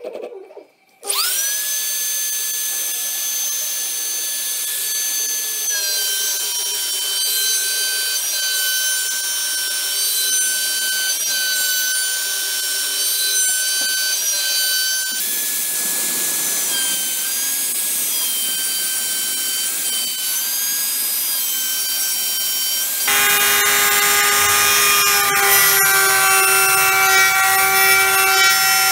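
Router spindle on a homemade CNC machine spinning up about a second in to a steady high whine, then running while the bit mills a pocket into alder. The tone shifts abruptly twice, and in the last few seconds it is louder, with a lower hum added.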